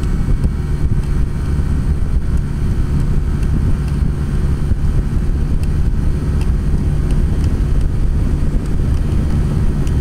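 Strong wind buffeting the microphone at high riding speed, over the Honda Click 125i scooter's single-cylinder engine running steadily.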